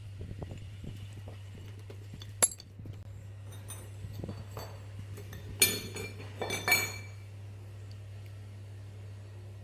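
Metal parts clinking: one sharp clink about two seconds in, then a quick cluster of clinks near the middle, over a steady low hum.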